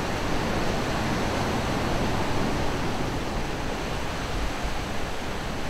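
Steady rushing of wind and water, with low buffeting of wind on the microphone.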